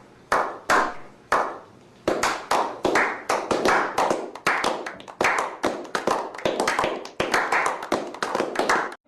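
Hand clapping: three spaced claps, then from about two seconds in a fast run of claps, about four a second, that cuts off abruptly near the end.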